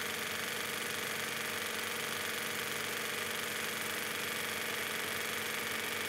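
Electric sewing machine running at a steady speed, stitching a seam through layers of cotton fabric.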